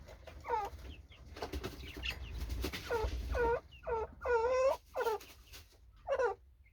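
Budgerigars chattering: a run of short, warbling calls one after another, with a longer call about four seconds in.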